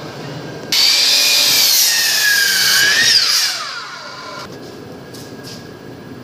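A Ridgid compound miter saw starts up about a second in with a high whine. Its pitch sags as the blade cuts through a yellow cedar slab, then it winds down and stops about four and a half seconds in.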